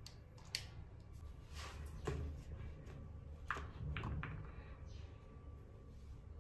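A few faint clicks and light knocks from small objects being handled: a candle lighter and plastic toiletry bottles. Beneath them is quiet room tone.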